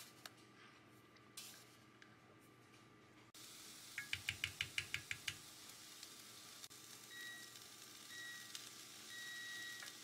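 Chicken in seasoned liquid sizzling softly in a pan on an induction hob. About four seconds in, a quick even run of about a dozen taps as a wooden spoon stirs against the pan. Later come three electronic beeps from the hob's touch controls, the last one longer.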